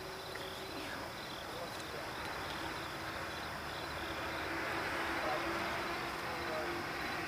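Insects chirping in an even, repeating pulse over a steady outdoor hiss.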